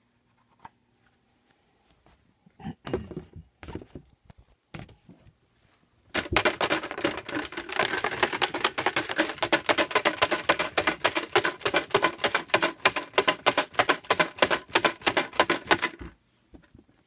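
Paper raffle tickets shaken inside a box to mix them for the draw: a few handling knocks, then from about six seconds in a rapid, steady rattle that lasts about ten seconds and stops suddenly.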